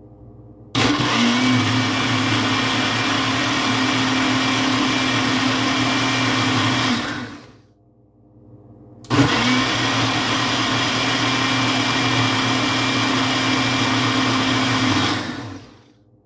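900-watt Ninja Nutri-Blender Plus personal blender running twice in spurts of about six seconds each, blending frozen strawberries and mango. Each spurt starts with a quick spin-up and ends with a wind-down, with a short pause between them that lets the fruit fall back to the blade.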